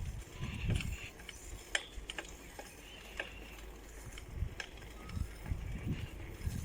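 Irregular low rumble of wind buffeting the microphone, with scattered sharp clicks and ticks, the loudest about a second and a half in.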